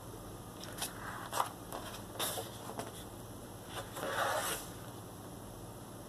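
Paper cover and pages of a large paperback print book rustling and scraping as hands open the cover and fold it back, with hands sliding over the paper. A few short scrapes, then a longer rustle about four seconds in.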